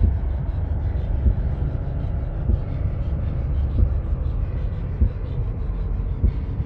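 Dark cinematic soundtrack bed: a steady low rumbling drone with a deep thump about every second and a quarter, in a slow heartbeat pulse.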